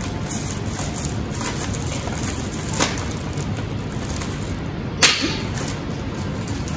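Scissors and a plastic bag of toasted bread slices being handled: two sharp clicks, a light one about three seconds in and a louder one about five seconds in, over a steady hiss.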